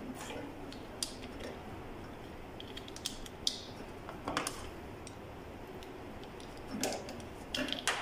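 Small scattered clicks and brief plastic rattles from a microwave oven's high-voltage fuse holder and its wires being handled, with a quick cluster of sharper clicks near the end.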